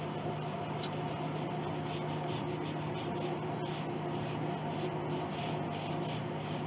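A damp cloth with abrasive scrubbing powder rubbed back and forth over the varnished wooden soundboard of an 1867 Chickering grand piano, a steady scratchy scrubbing that lifts grime off the maker's decal. A steady low hum runs underneath.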